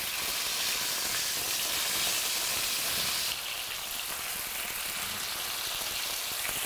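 Chicken cutlets sizzling steadily in hot olive oil as they are turned over to brown the other side; the sizzle eases a little about three seconds in.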